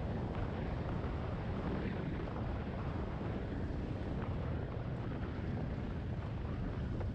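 Steady wind rush over the microphone, mixed with the running of a Yamaha XT250 Serow's single-cylinder engine, heard from a motorcycle riding at a constant pace.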